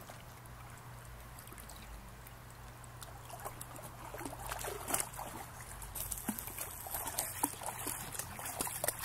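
Small splashes and trickling of river water around a plastic kayak as a person wading beside it moves it, with scattered light knocks; it gets busier about three seconds in.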